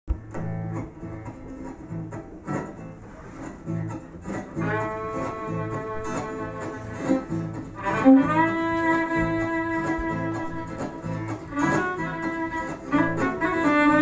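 Live acoustic guitar strummed in a steady rhythm as a song's instrumental introduction. A second instrument holding long notes joins about five seconds in and gets louder around eight seconds.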